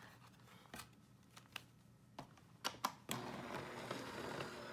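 A few light clicks and taps as acrylic cutting plates are handled and lined up, then, about three seconds in, a die-cutting machine starts drawing the plate sandwich through its rollers with a steady running sound. It is cutting a slimline die through paper backed with an adhesive sheet.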